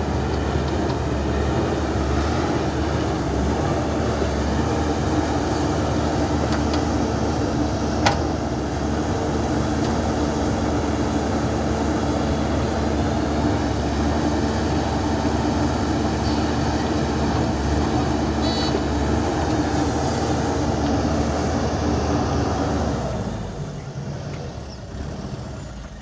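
JCB 3DX backhoe loader's diesel engine running steadily under load while the backhoe digs and swings soil into a dump truck, with one sharp knock about eight seconds in. The sound fades away near the end.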